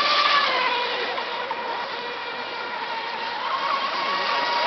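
Several radio-controlled mono-hull racing boats running flat out, their motors giving a steady high-pitched note that dips slightly about half a second in and rises again near the end.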